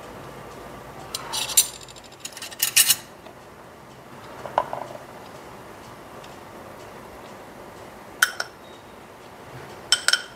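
A spoon clinking and scraping against glass, a handful of separate sharp clinks spread out, as cocoa powder is scraped from a small glass bowl into a food processor jar.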